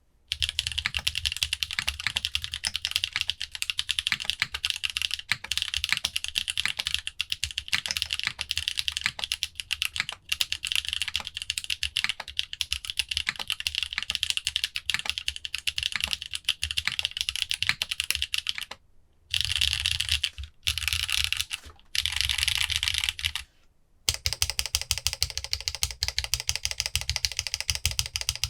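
Fast typing on a modded Geonworks Frog mini mechanical keyboard with lubed Holy Panda tactile switches: a dense, continuous stream of key clacks. After about 19 seconds it breaks into three short bursts, and after a brief pause a steady stream resumes with a slightly different tone.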